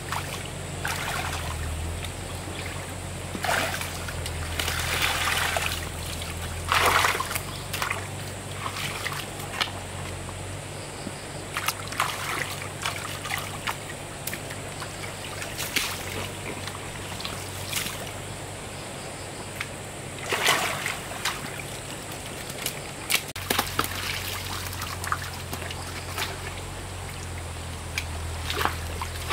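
Water trickling and splashing in irregular bursts. A low steady hum runs beneath it for the first third, stops, and comes back near the end.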